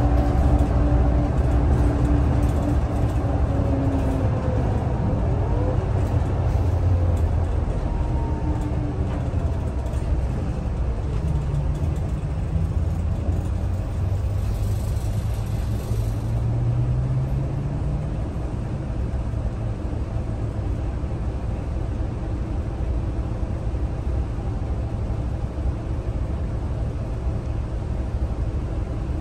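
Scania L94UB bus heard from inside the passenger cabin while driving: a steady engine and road rumble, with the engine note rising twice near the middle as the bus picks up speed.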